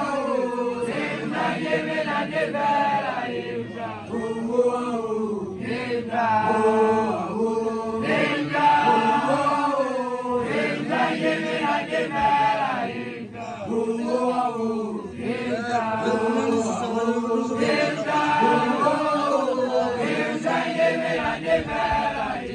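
Group of young Basotho initiates (makoloane) chanting an unaccompanied song together, many male voices rising and falling in overlapping phrases.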